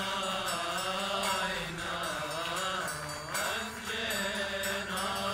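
Liturgical chanting: a voice sings a slow, melismatic prayer line that glides up and down over a low held drone note.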